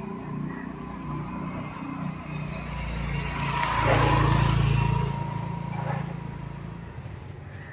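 A motor vehicle passing close by, its engine rising to a peak about four seconds in and fading away over the next two seconds.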